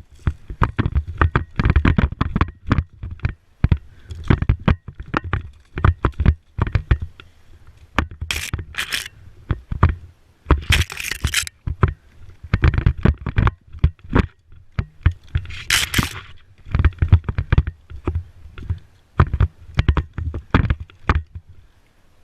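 Close movement and handling noise at the microphone: irregular knocks, thumps, scrapes and rattles, with three brief hissing rushes.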